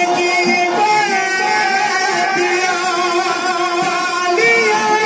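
Man singing a naat through a PA system, drawing out long held notes that waver and glide in pitch, with a rise about four seconds in.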